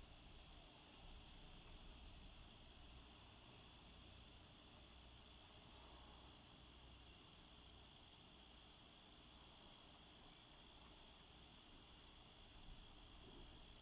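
Crickets chirping in a continuous chorus, a steady high-pitched trill that never breaks.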